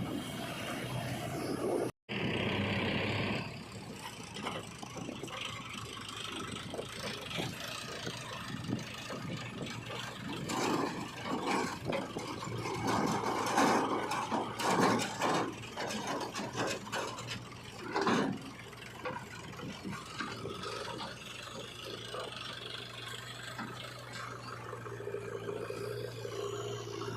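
Diesel engine of a backhoe loader running while it digs and loads mud, with irregular clatter and knocks through the middle and a steady engine hum toward the end.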